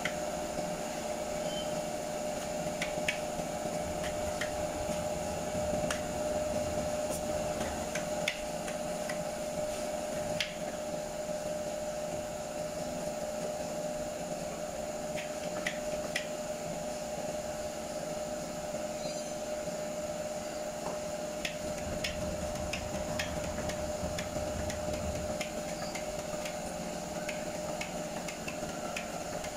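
Steady mechanical hum with one constant tone, with scattered light clicks and taps of a plastic spreader as body filler is mixed on a board and spread onto a car's steel fender.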